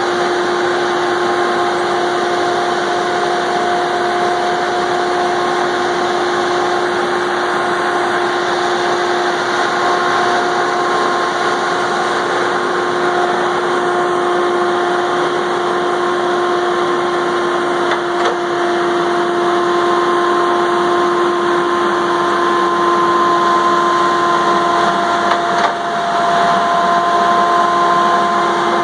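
Valmet 603 wheeled feller buncher's diesel engine running at a steady pitch as the machine drives and turns.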